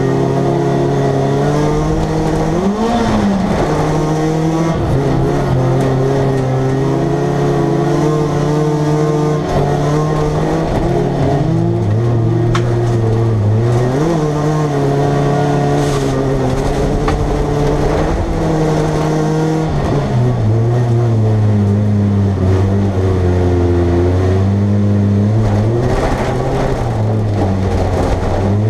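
Folkrace car's engine running hard, heard from inside the stripped cabin. The engine note holds fairly steady, then dips and climbs back up several times as the car lifts off and accelerates again.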